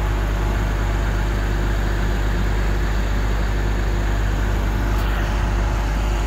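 Diesel engine of a 100-ton Sany crawler crane idling steadily at low throttle.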